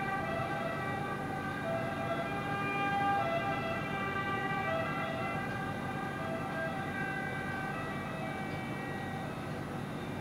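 Sustained droning tones at several pitches at once, held steadily, with some of the higher notes dropping in and out every second or two.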